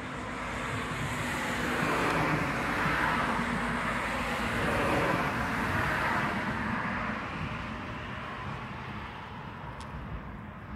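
A car passing on the street: its tyre and engine noise swells over about two seconds, holds for several seconds, then fades away.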